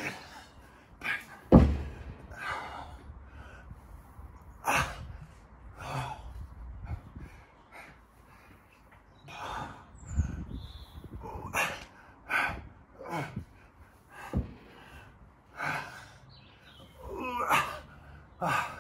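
A man's hard breathing, sharp exhales and snorts coming every second or two as he works through kettlebell clean, squat and overhead press reps. A loud low thump about a second and a half in.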